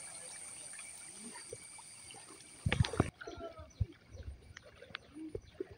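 Floodwater sloshing and splashing as people wade through it, with a few heavier splashes just before three seconds in. The sound then drops to quieter outdoor ambience with scattered small clicks.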